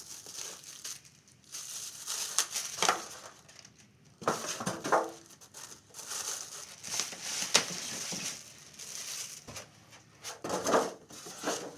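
A cardboard box being opened and its packing handled: irregular crinkling and rustling of cardboard and plastic, with scattered sharp knocks as parts are moved.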